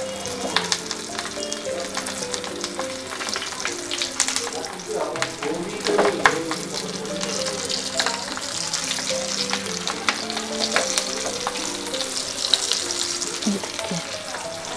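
Stuffed green chillies sizzling in hot oil in a frying pan, a steady hiss with many small crackles and pops as more chillies are laid in.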